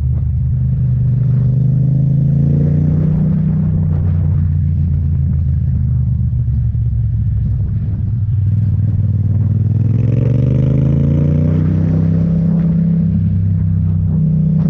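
Motorcycle engine running at road speed, its pitch rising steadily about two-thirds of the way through as it accelerates, then settling again.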